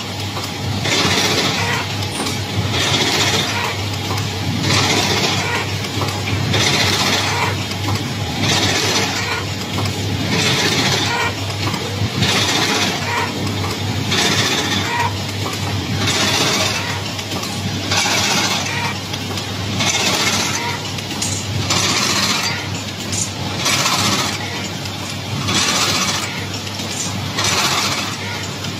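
PK108-110 playing-card making and corner-rounding cutting machine running over a steady low hum, with a noisy stroke about every two seconds as it cycles.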